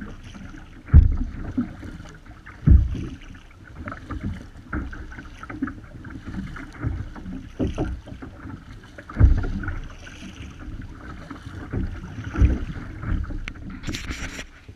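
Kayak paddling on choppy water: paddle strokes and water splashing and slapping against the hull of a sit-on-top fishing kayak, with wind buffeting the microphone. A few heavy low thumps come at irregular intervals, and there is a short louder rush near the end.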